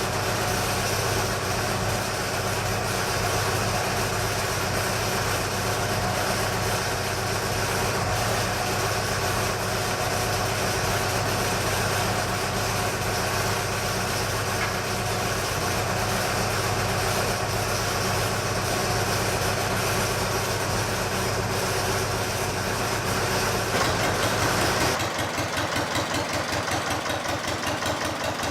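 Armstrong Siddeley AS2 two-cylinder air-cooled diesel engine running steadily. Near the end its sound changes abruptly to a slower, distinctly pulsing beat.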